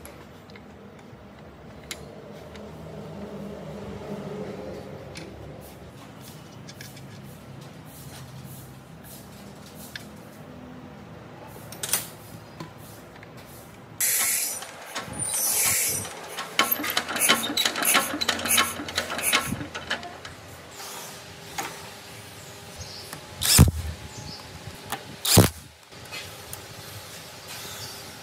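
Hand work on metal parts: a combination spanner clinking and turning a nut on a part held in a steel bench vise. Then a pneumatic wrench on a socket drives bolts on the engine block in short bursts, the two loudest near the end.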